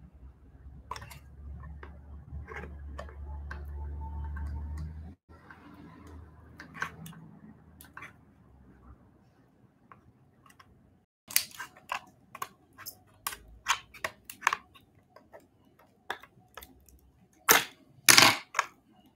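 Shears cutting through a clear hard-plastic graded-card holder: a run of sharp plastic cracks and snaps that start about halfway through and come faster and louder near the end. The first few seconds hold a low rumble of handling.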